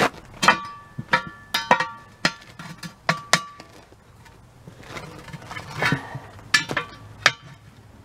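Steel pry bar clinking and clanking against a steel wheel rim while a tire bead is levered off it, a quick irregular series of strikes; several in the first few seconds leave the rim ringing briefly.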